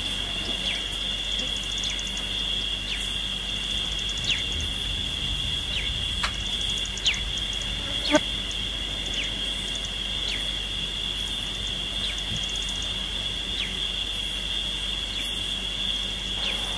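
Wild outdoor ambience: insects droning steadily on one high pitch, with short, quickly falling bird calls repeating every second or so. A single sharp click sounds about eight seconds in.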